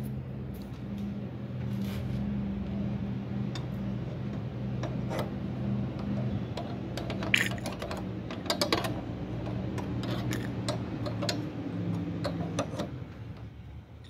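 A steady low machine hum, with scattered light clicks and taps from handling a JCB cab door lock while oiling it.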